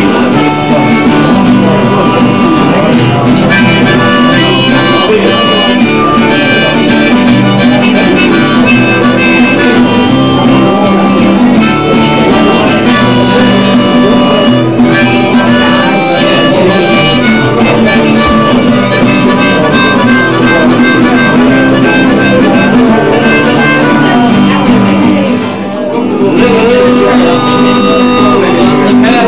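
Live harmonica and guitar playing a tune together, with a brief dip in loudness near the end.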